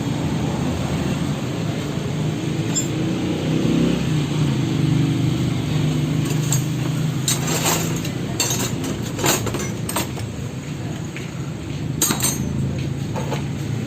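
A low vehicle rumble runs throughout, louder around the middle. From about halfway in come scattered sharp metallic clinks and knocks, like metal parts or tools being handled.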